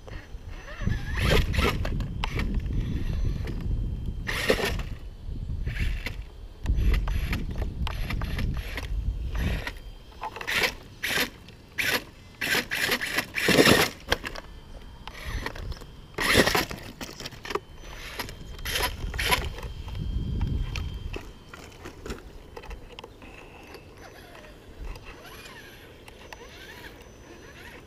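Radio-controlled rock crawler climbing over logs: the drivetrain rumbles and strains, and the tyres and chassis knock, click and scrape against the wood, with the sharpest knocks bunched in the middle. It quietens over the last few seconds.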